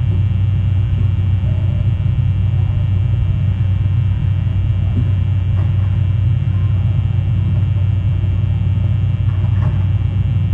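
Steady low rumble with constant hum tones over it, carried by a live nest camera's microphone, with a couple of faint brief sounds about halfway through and near the end.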